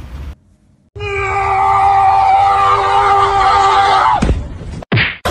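A loud scream held at one steady pitch for about three seconds, then sliding down and breaking off, with a short falling yelp near the end.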